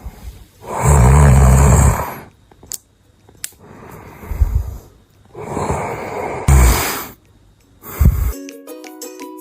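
A man snoring loudly: several long snores about two seconds apart, the first the loudest, with a short snort near the end. A light tinkling music tune then starts.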